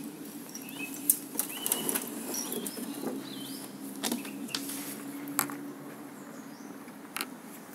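Handling noise from a handheld phone camera being moved about: scattered sharp clicks and rustles over a steady low hum, with a few faint chirps early on.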